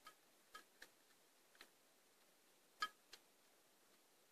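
Sparse, irregular metallic clicks and taps, about six of them with a slight ring, the loudest near three seconds in, from hand work on a bore-head pipe fitting; otherwise near silence.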